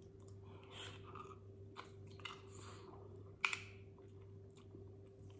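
Close-miked chewing and mouth sounds of a person eating seafood boil, soft and irregular, with one sharp click about three and a half seconds in. A faint steady hum runs underneath.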